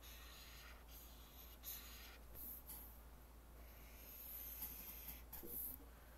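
Faint, scratchy strokes of a pencil drawing lines on paper, about five in all, the longest lasting about a second.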